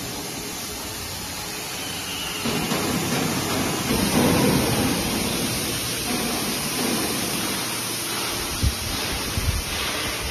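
Steady rushing air noise, swelling slightly a few seconds in, with a few short low thumps near the end.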